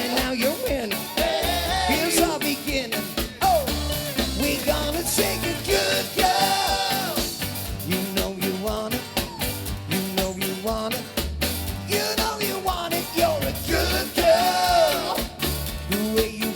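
Live party band playing an upbeat cover with drum kit, bass and a singing voice.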